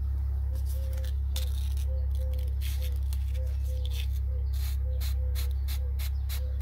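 Fine sandpaper rubbing the copper commutator of a small pump-motor armature in short, scratchy strokes, cleaning dirt from between the commutator segments. A loud, steady low hum runs underneath.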